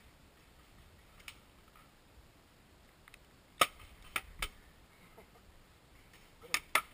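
About six sharp, single cracks of paintball fire around a wooden bunker, spaced irregularly: a faint one, then the loudest about three and a half seconds in with two more close after it, and a quick pair near the end.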